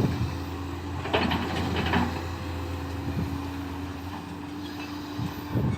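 Diesel engine of a JCB backhoe loader running steadily. A short stretch of clattering and scraping comes about a second in, and another brief one near the end.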